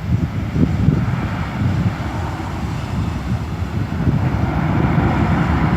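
Airbus A320-214's CFM56 jet engines running, heard as a steady, noisy low rumble.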